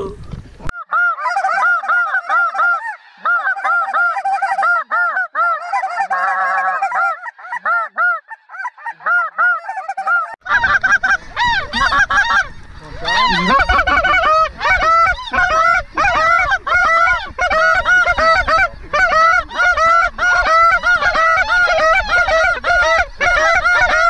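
A large flock of snow geese calling overhead: a dense, continuous chorus of many overlapping high honks that thickens about ten seconds in, when a low rumble also comes in.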